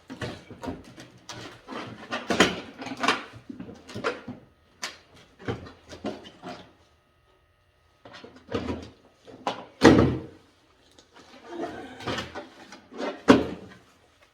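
Tools and hard objects being handled and set down: a run of irregular clattering and knocking, a short pause, then two louder knocks, about ten and about thirteen seconds in.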